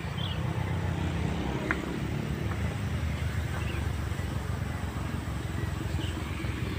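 Wind buffeting the microphone: a steady, fluttering low rumble, with a few faint high chirps above it.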